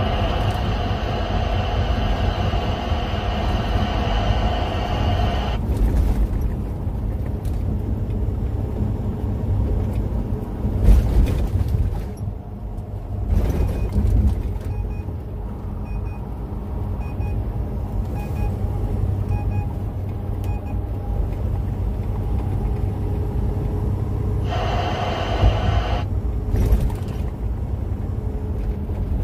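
Steady low road and engine rumble inside a moving vehicle's cab. A band of hiss cuts in and out abruptly, near the start and again near the end, and a few faint short high beeps come a little past the middle.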